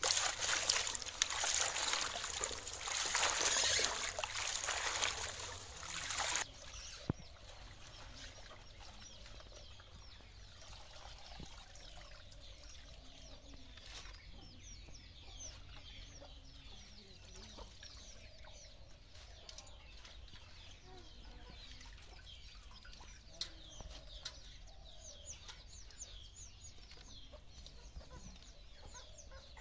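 Water splashing and pouring loudly as spinach leaves are washed in a metal bowl, cutting off about six seconds in. After that, chickens clucking softly and small birds chirping.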